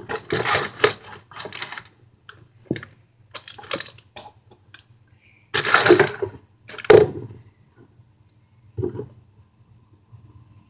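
Plastic packaging and bubble wrap being handled and crinkled, in rustling bursts with pauses between, the loudest two a little past halfway.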